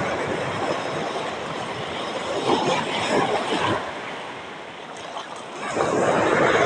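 Sea surf washing in and breaking at the shoreline, rising in two surges: one about two and a half seconds in and a louder one near the end.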